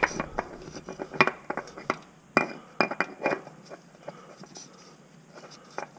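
Scattered light clicks and metallic clinks, several in the first three seconds and fainter after: a new spin-on oil filter being handled and knocking against parts as it is worked up onto its mount by hand.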